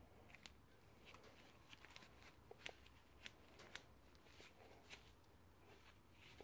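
Scissors snipping at a piece of string, heard as a scatter of faint, sharp clicks with light handling rustle.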